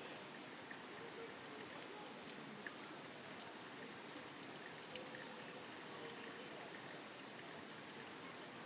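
Steady rushing of water from a mountain waterfall, an even hiss with small splashes and drips in it.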